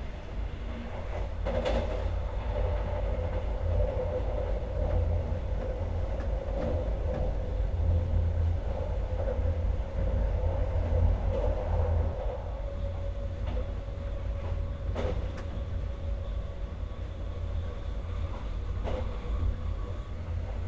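Alex regional passenger train running along the line, heard from on board: a steady low rumble of wheels on rail with a constant humming tone over it, and a few sharp knocks over rail joints or points, about two seconds in, near the three-quarter mark and near the end.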